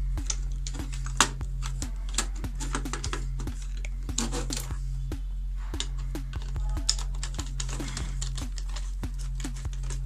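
Screwdriver turning a screw into a plastic switchboard plate: a run of short, irregular clicks and ticks, several a second, as the screw is tightened. A steady low hum runs underneath.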